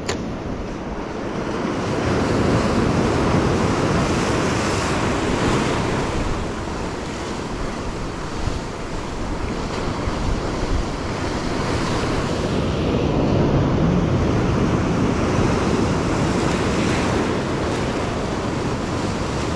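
Sea surf breaking and washing over coastal rocks, with wind buffeting the microphone. The rush of water swells louder twice, and there is a brief sharp click at the very start.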